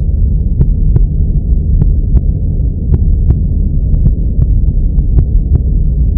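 A loud, muffled low rumble and hum, with scattered faint clicks through it.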